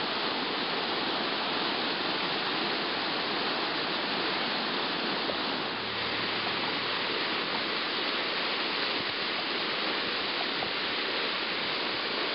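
Whitewater rapids rushing steadily, the water churning through a river hole, with a brief dip about six seconds in.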